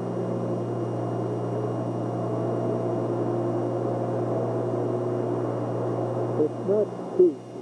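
Steady low hum with several held tones, the room tone of a large hangar. Indistinct voices come in briefly near the end.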